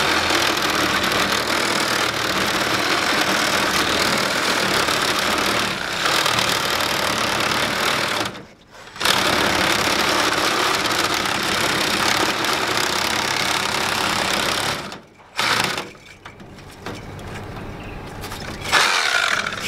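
Cordless reciprocating saw running steadily as it cuts slowly through the copper-tube end of an air-conditioner condenser coil. It stops briefly about eight and a half seconds in and again about fifteen seconds in, then runs quieter, with a short louder burst near the end.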